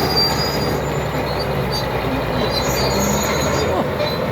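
Komatsu D80A crawler bulldozer working, its diesel engine running steadily under load while the steel tracks squeal on and off.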